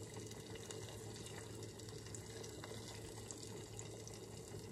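Faint, steady hiss of raw eggs cooking gently in melted butter in a saucepan over a lit gas burner, with a few faint taps of a wooden spoon in the pan.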